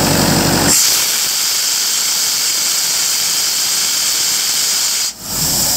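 Kubota diesel engine of a Kaeser portable air compressor running, then cutting off under a second in, leaving a loud steady hiss of compressed air venting, typical of the blowdown valve emptying the receiver after shutdown. The hiss dips briefly near the end.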